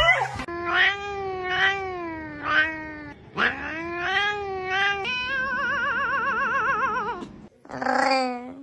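A cat yowling in long, drawn-out calls that waver up and down in pitch, one after another. In the second half one call turns into a fast, even warble, and a shorter call follows near the end.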